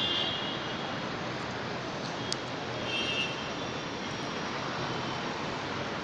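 Steady background roar of traffic and airport noise at a terminal curbside. Brief high-pitched squeals come near the start and again about three seconds in, and a sharp click sounds around two seconds in.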